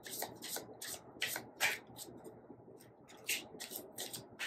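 Tarot cards being shuffled by hand: a quick run of crisp papery swishes, several a second, with a brief pause a little past halfway.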